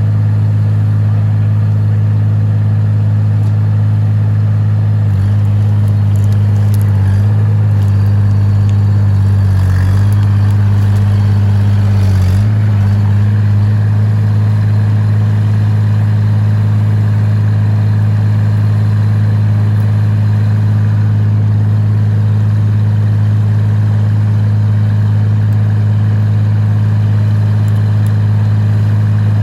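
Excavator's diesel engine running steadily, its note wavering and shifting for several seconds near the middle as the machine works, with a little clatter.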